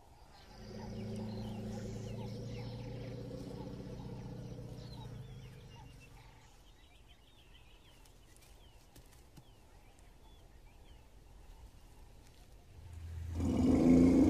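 An African elephant trumpets loudly near the end, a sudden noisy blast. Before it, a low steady droning tone fills the first few seconds, then a quiet stretch with faint bird chirps.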